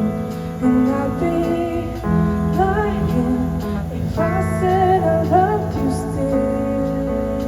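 Live rock band playing a song's opening before the lyrics: electric guitar, bass guitar and drums, with a gliding, bending melody line on top.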